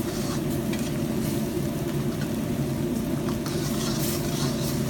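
Chicken pieces simmering in butter chicken gravy in a pan, bubbling and sizzling, with a spoon stirring and clicking against the pan now and then. A steady low hum runs underneath.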